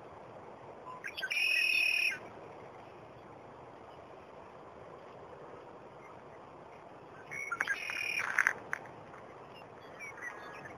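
A bird singing two loud, clear whistled phrases, the first about a second in and the second past the middle, with a faint short call near the end, over a steady outdoor hiss.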